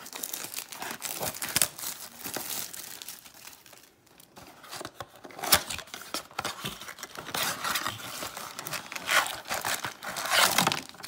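Plastic shrink wrap crinkling as it is pulled off a 2021 Topps Series 1 baseball card blaster box, then the box's cardboard flap being torn open. Irregular crackling and tearing with a few sharp louder rips and a brief lull about four seconds in.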